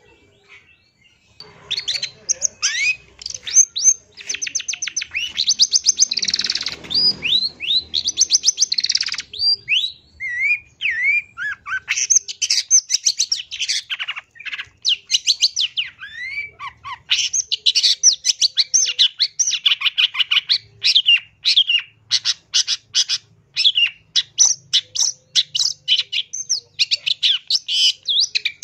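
Long-tailed shrike singing a fast, varied chatter of rapid high notes and quick pitch sweeps, starting about a second and a half in.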